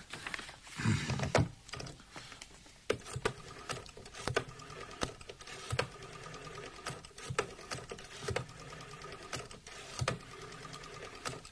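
Typewriter keys clacking in irregular runs of strokes, with short pauses between bursts. A brief low sound comes about a second in.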